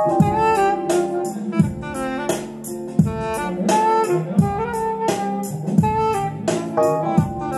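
Live band playing instrumental music: a saxophone melody over acoustic guitar and keyboard, with a steady beat.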